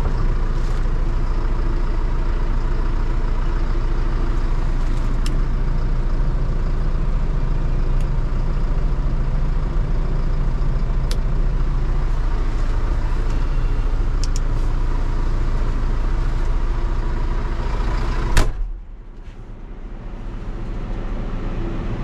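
Vehicle engine running steadily close by. About 18 seconds in there is a sharp clack, as of a cab door slamming shut, and the engine then sounds much quieter and muffled.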